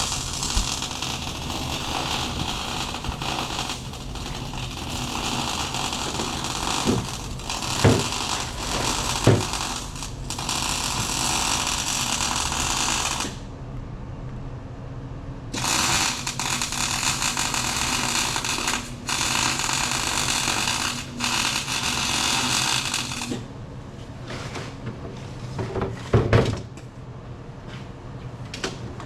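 A power tool running in long stretches of steady hiss, stopping and starting again a few times, with a few sharp knocks in between.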